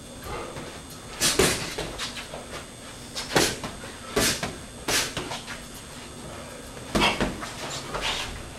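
Boxing sparring: about seven short, sharp slaps and thuds of gloves landing and feet on the ring canvas, at irregular spacing, two close together about a second in.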